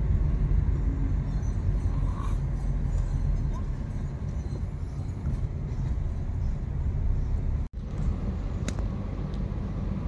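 Steady road and engine noise inside a moving car's cabin, a low even rumble, with a brief gap about three-quarters of the way through.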